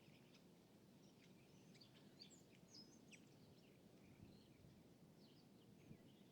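Faint lakeside ambience: scattered small birds chirping and twittering over a low, steady background rumble.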